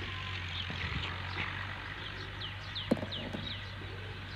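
Small birds chirping repeatedly in short falling notes over a steady low hum and outdoor background noise, with one sharp click about three seconds in.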